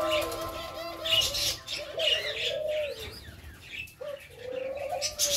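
Doves cooing: a run of low, rolling coos, a short pause about four seconds in, then another coo. Smaller birds chirp faintly and higher above them.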